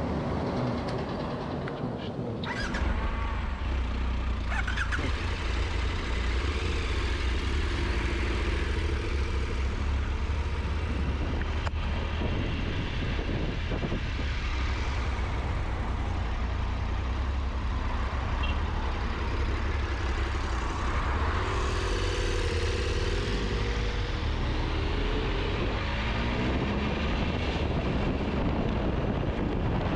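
Large adventure motorcycle underway, its engine running under heavy wind rumble on the microphone. The low rumble grows stronger a couple of seconds in.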